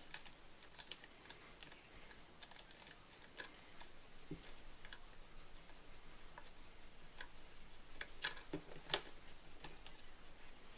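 Faint, scattered small ticks and rustles of paracord being handled and worked through the knot, a few slightly louder near the end.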